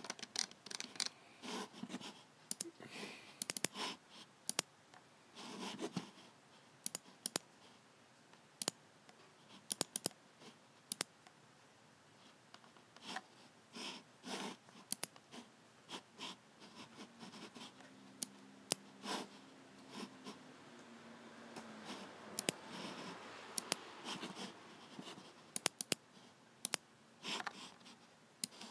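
Logicool (Logitech) G7 computer mouse buttons clicking at irregular intervals, often in quick pairs, with short scratchy rubbing sounds between the clicks.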